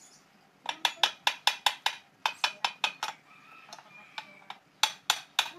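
Hammer striking a metal Vespa engine part in quick blows, about five a second, in three runs separated by short pauses, each blow ringing briefly.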